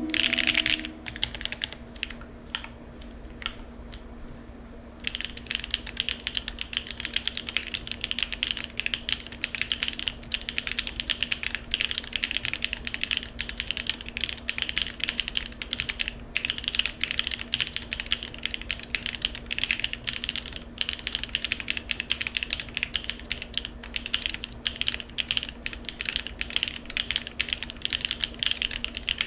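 Typing on an Alice-layout mechanical keyboard with lubed Jieum V2 switches, PBT keycaps, a polycarbonate plate and no foam. A few scattered keystrokes come first, then fast, continuous typing from about five seconds in.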